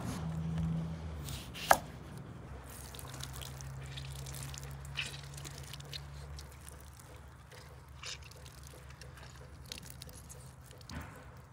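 Halved oranges squeezed by gloved hands, the juice dripping and splattering onto spiced minced meat in a plastic tub. There is a sharp click a little under two seconds in and a low steady hum underneath.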